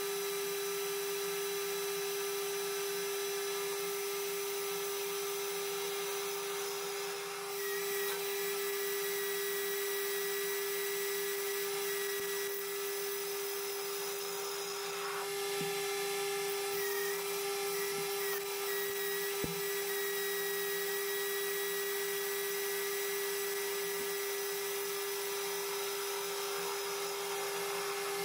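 AL960B metal lathe running steadily with a high-pitched whine while the cutting tool faces a recess into a spinning aluminium flywheel blank, throwing off chips; the tone shifts slightly a few times as the cut goes on.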